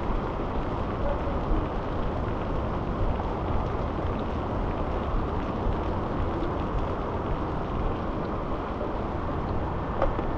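Steady rushing noise of rain and a wet street heard while riding a bicycle through a thunderstorm, even in level throughout.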